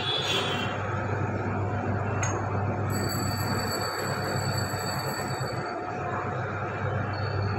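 Pipe-ring rolling machine running, its motor humming steadily as 1-inch stainless steel pipe is rolled through the steel rollers into a ring. A high-pitched metal-on-metal squeal from the pipe on the rollers comes in about three seconds in and stops a little before six seconds.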